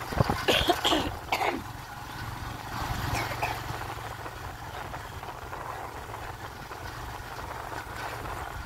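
Steady low engine hum with a haze of wind-like noise, and a few short vocal sounds in the first second and a half.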